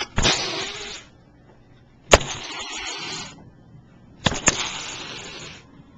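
An angry cat hissing three times, each hiss about a second long and starting with a sharp spit.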